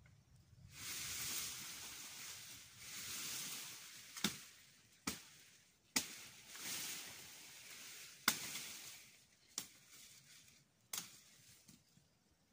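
Machete chopping into woody brush stems: about six sharp chops spread a second or two apart. Between them, leaves and branches rustle loudly as the vegetation shakes.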